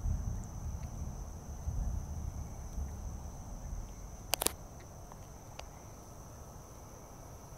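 Crickets chirring in one steady high trill, with a low rumble in the first few seconds that fades, and a sharp double click about four and a half seconds in.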